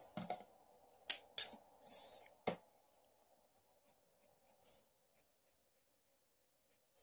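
Felt-tip markers being handled and used on paper. A few sharp clicks and taps come in the first two and a half seconds as markers are picked up and uncapped, then a marker tip scratches softly as it colors on paper.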